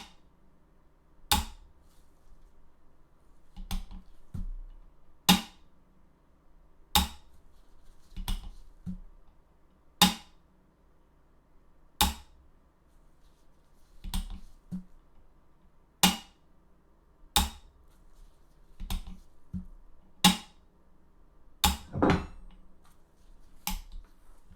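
AR-15 mil-spec trigger group being dry-fired over and over: a sharp metallic snap of the hammer falling roughly every one and a half to two seconds, with quieter clicks between them as the hammer is reset.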